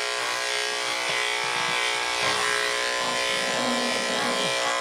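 Electric pet grooming clippers running with a steady buzz as they shave through a dog's matted coat.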